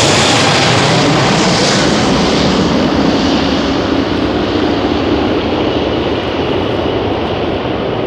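Airbus A380's four jet engines at takeoff power as the airliner climbs out overhead: loud, even rushing jet noise. The hiss in it fades after about two seconds as the plane moves away, and the whole sound slowly grows quieter.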